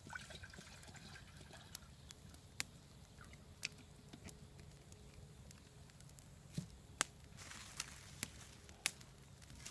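Water poured from a plastic bottle into a small pot for about the first second and a half. After that, a wood campfire crackles, with a sharp pop every second or so.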